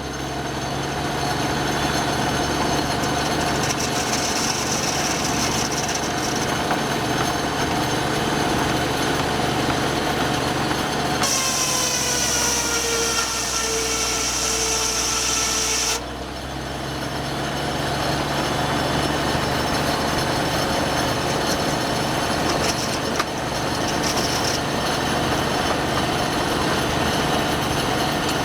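Old sawmill machinery running steadily. About eleven seconds in the sound changes abruptly to a whine that slides slowly down in pitch, and about five seconds later the steady running returns.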